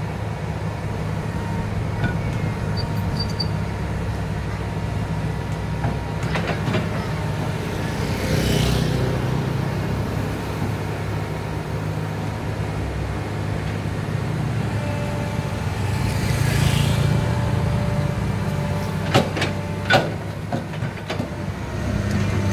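Komatsu PC200 hydraulic excavator's diesel engine running steadily while it digs. The engine swells louder twice as it comes under load, and a couple of sharp knocks come near the end.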